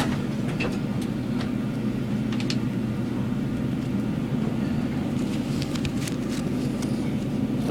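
Steady low hum of an elevator car in motion, with a few faint ticks.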